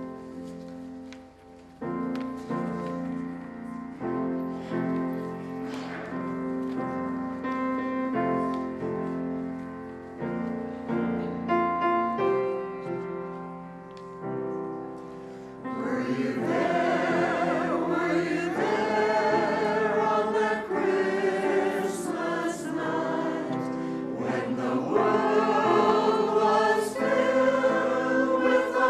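Church choir singing. About halfway through, the singing grows fuller and louder.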